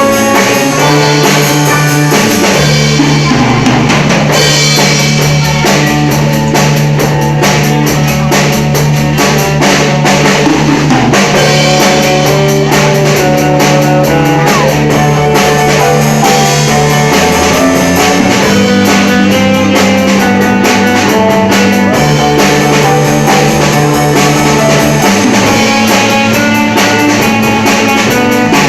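Music with a drum kit and guitar, steady and loud throughout, over held bass notes that change every few seconds.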